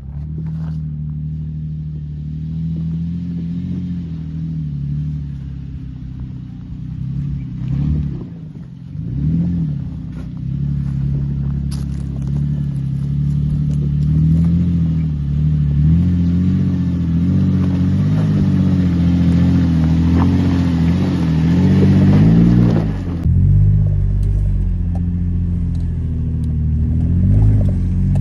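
Toyota FJ Cruiser's V6 engine labouring up a steep, rutted off-road hill, its revs rising and falling over the ruts and growing louder as it approaches. About 23 seconds in, the sound switches to the same engine heard from inside the cabin.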